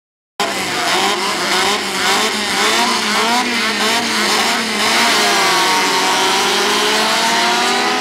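A pack of dirt-track speedway race cars, several engines revving together with their notes gliding up and down, then pulling away in long rising and falling sweeps. The sound cuts in suddenly about half a second in.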